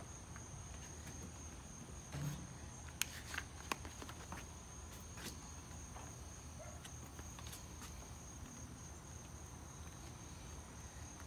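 Steady high-pitched insect chorus, with a few light clicks and knocks scattered through it.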